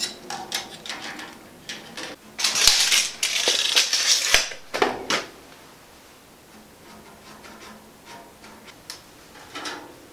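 Handling sounds at a steel workbench while measuring with a steel tape measure: scattered clicks and clatter, a denser rustling, clattering stretch about two seconds in, then quieter ticks and scratches.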